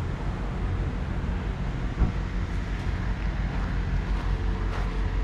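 Low, steady wind rumble on the microphone, with a few soft knocks, the sharpest about two seconds in.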